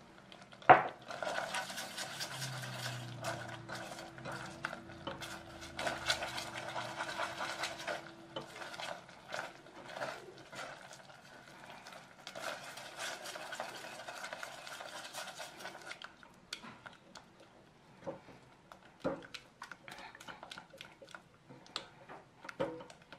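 Silicone spatula stirring and scraping thick caramel filling around a stainless steel pot, with a sharp knock about a second in. The stirring comes in two long spells, then thins to scattered light taps and clicks in the last several seconds.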